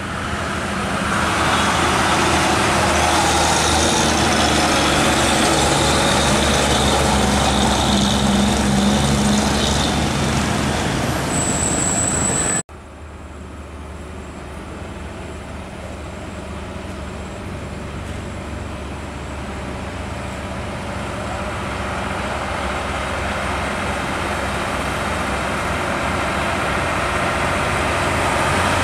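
Old Mitsubishi Fuso diesel trucks' engines passing close: the first runs loud, its pitch rising about nine seconds in. About halfway through the sound cuts off abruptly, and a second truck is heard approaching, getting steadily louder.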